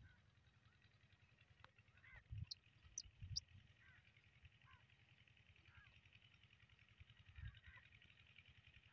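Near silence with faint distant bird calls every second or so. A few soft low thumps and light clicks come about two and a half to three and a half seconds in.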